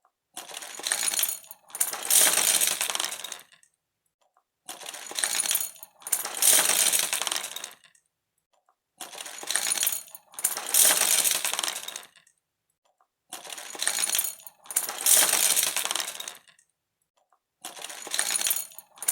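A clatter of small hard objects falling and scattering, in pairs: a shorter rattle, then a longer, louder one. The pair repeats about every four and a half seconds, four times over, with silence in between.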